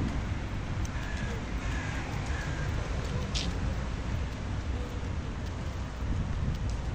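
Outdoor city ambience: a steady low rumble of distant traffic and wind on the microphone, with a few short, faint bird calls a second or two in and a single light click in the middle.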